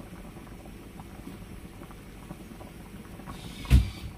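Coconut-milk rendang sauce simmering in a pan, with a steady faint bubbling and small crackles. A single dull knock about three-quarters of the way through is the loudest sound.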